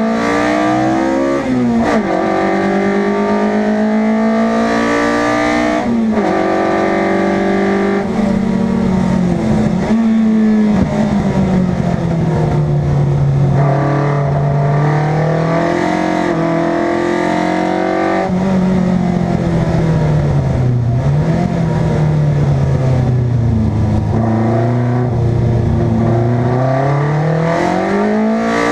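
Competition car engine driven hard, running loud. Its note climbs and drops again and again, with sudden breaks every few seconds as the driver shifts gear and lifts and reapplies the throttle.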